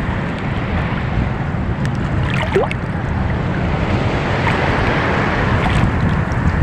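Wind rumbling on the microphone over water washing around a small boat at sea, with one short rising squeak about two and a half seconds in.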